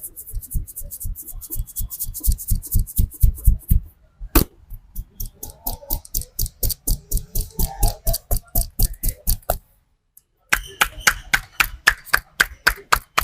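A barber's hands striking rapidly and rhythmically in a percussive massage, about six strokes a second: dull thumps at first, then sharper slaps and chops, with a brief break about ten seconds in.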